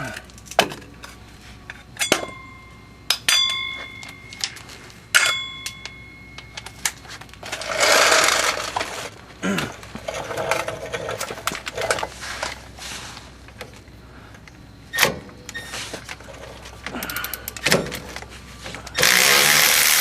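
Hand tools working on brake caliper bolts: sharp metal clicks and clanks, a few of them ringing on like struck steel. A loud steady rush of noise comes in near the end.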